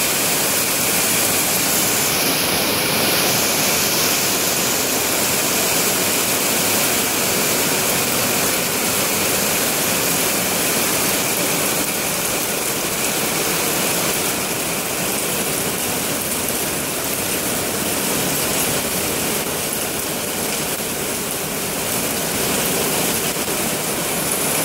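Heavy rain pouring down steadily, with water running across a flooded paved floor.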